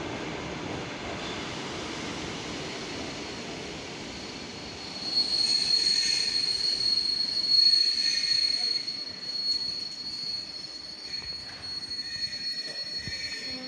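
ER9M ten-car electric multiple unit running past with a steady low rumble; about five seconds in, a loud, high-pitched, steady metallic wheel squeal starts as the train slows, then fades and wavers toward the end.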